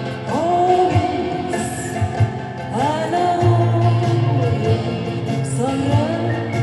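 Recorded song: a voice sings three long held notes, each scooping up into pitch, over a full band with a steady beat.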